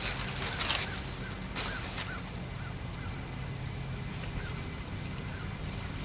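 Rural outdoor background: a steady low mechanical hum under a run of short, faint bird chirps. A brief rush of hiss fills the first second, with two short noisy bursts just after.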